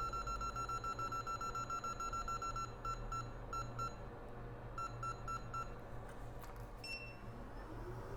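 Hot-air rework station beeping as it is switched on: rapid high-pitched beeps, about eight a second, that thin out into spaced clusters and stop a little past halfway. Near the end a low hum rises as the blower starts up.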